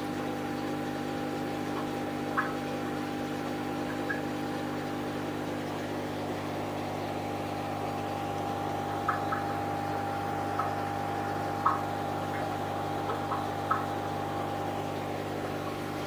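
Aquarium pump humming steadily, with scattered light clicks.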